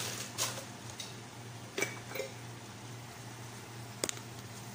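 Quiet kitchen background: a steady low hum with a few brief rustles near the start and a sharp light click near the end.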